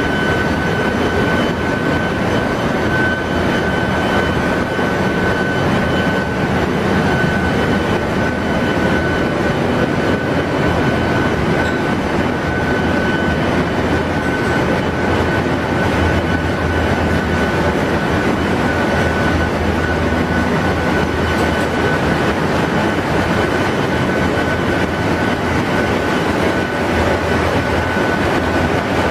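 Ship's engine-room machinery running: a loud, steady mechanical din with a constant high-pitched whine through it.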